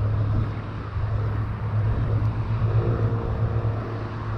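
Road traffic heard while cycling: a steady low rumble of vehicles and wind. About three seconds in, a motor vehicle's engine hum joins.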